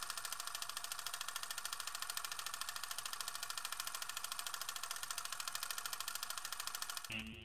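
Film projector running: a rapid, even mechanical clatter of the shutter and film advance with a steady whir beneath. It stops abruptly near the end.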